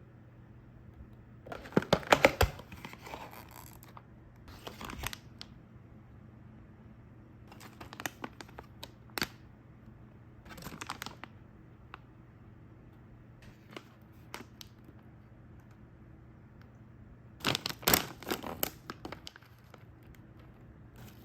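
Snack packaging being opened by hand: tearing and crinkling of the wrapping in several short bursts, the loudest near the start and again near the end.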